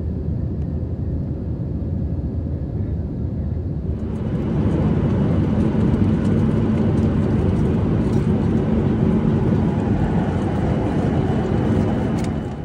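Steady drone of jet engines and rushing air heard inside an airliner cabin in flight. About four seconds in it jumps louder and brighter, with a low steady hum running under it.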